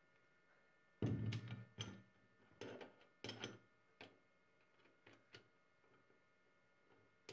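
Metal clinks and scrapes from the parts of a restored hand-cranked meat grinder being fitted together as the crank handle goes onto the shaft: a cluster of louder scraping knocks about a second in, then a few light ticks.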